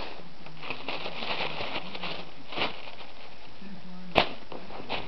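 Crumpled tissue paper crinkling and rustling in bursts as a cat moves and paws through it, with a single sharp click about four seconds in.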